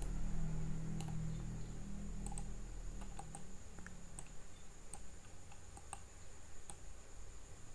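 Irregular clicks of a computer mouse and keyboard, about a dozen, over a low steady hum that fades out about three seconds in and a faint steady high whine.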